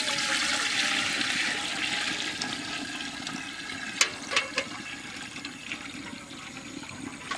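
Water poured from a metal pan into an empty aluminium cooking pot: a steady splashing pour that slowly grows quieter. Two light clinks about four seconds in.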